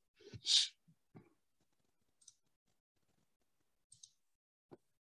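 A short breathy hiss about half a second in, then a few faint, scattered clicks of a computer mouse.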